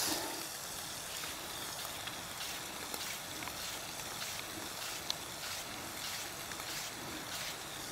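Summer squash being sliced into ribbons on a hand-held mini mandoline: faint, irregular scraping strokes with one sharp click about five seconds in, over a steady faint hiss.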